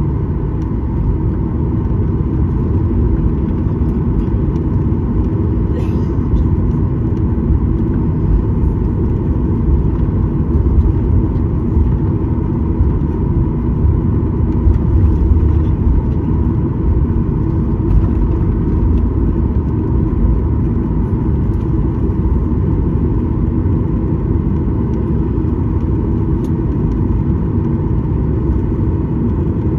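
Cabin noise of a Boeing 737-900 taxiing: the CFM56 engines running steadily at taxi power under a deep rumble from the wheels and airframe, with a faint steady whine on top.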